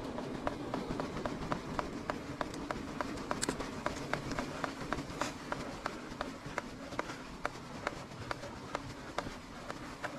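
Mountain bike rolling downhill over stone-slab paving: steady rolling noise with a string of sharp ticks, about three or four a second.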